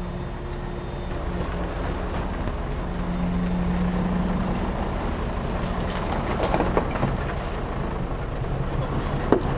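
A heavy diesel engine of construction machinery running steadily. A few short squeaks come about two-thirds of the way through, and there is a sharp click near the end.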